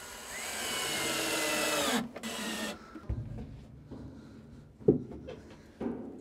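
A handheld power tool cutting into wood, running for about two seconds with its pitch sliding as it bites, stopping abruptly, then giving a brief second burst. Quieter handling noises follow, with two sharp knocks of wood near the end.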